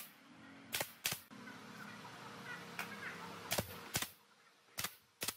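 Six sharp knocks on wood, coming roughly in pairs, over a faint steady hum.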